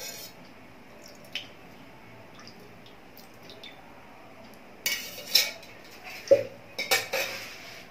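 Metal ladle clinking and scraping against the inside of a metal kadhai as oil is spread around the pan: a single faint click first, then a cluster of sharp clinks and scrapes in the last few seconds.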